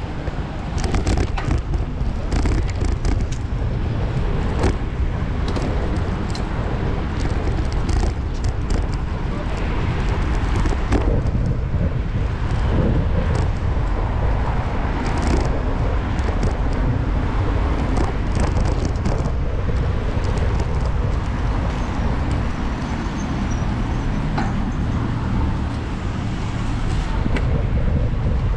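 Street traffic and road noise heard from a moving bicycle, with a heavy steady low rumble and frequent short clicks and rattles.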